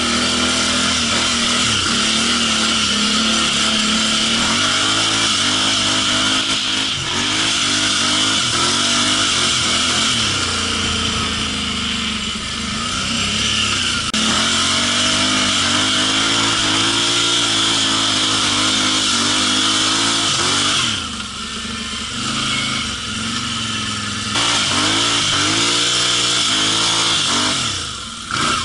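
ATV engine heard from the rider's seat, revving up and down as it is ridden, its pitch rising and falling with the throttle. The engine eases off for a few seconds past the twenty-second mark and again near the end.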